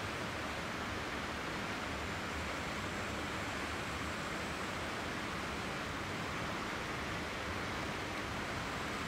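Steady, even hiss with no distinct events, and a faint high thin tone above it.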